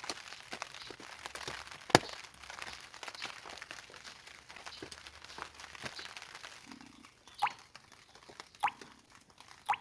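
Dense crackling and pattering with one sharp snap about two seconds in. After about seven seconds this thins out to a few single drops plopping into water, each with a quick falling pitch.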